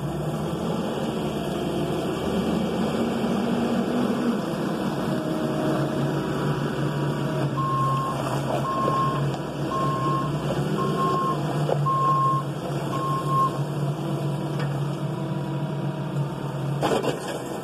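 Case 580ST backhoe loader's diesel engine running as the machine moves about, with its reverse alarm beeping six times, about once a second, in the middle. A few short knocks near the end.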